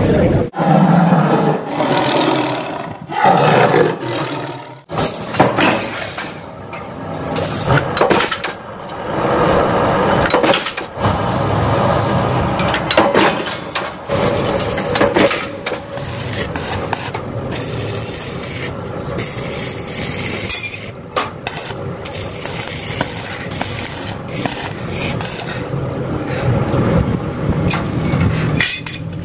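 Steel stock being cut and handled in a metal workshop: scraping and rubbing of metal with repeated clanks and knocks, changing abruptly several times.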